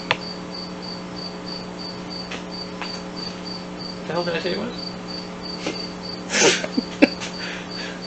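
A cricket chirping steadily, about three to four high chirps a second, over a steady low hum.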